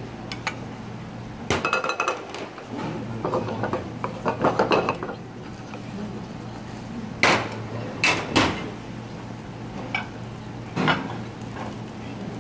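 A metal spoon scraping and knocking against a frying pan while tomato paste is stirred and lightly fried. It is a series of clinks and scrapes, with a quick flurry a few seconds in and the sharpest knocks about seven to eight and a half seconds in, over a steady low hum.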